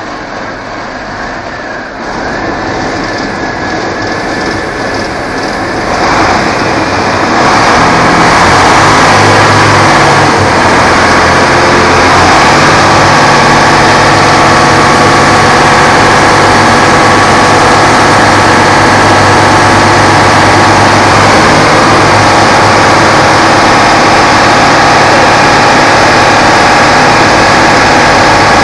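A Ural-4320 fire engine's diesel revs up to drive its fire pump, rising in steps over the first several seconds. It then holds a loud, steady high-rev run, with the rush of the water monitor's jet on top.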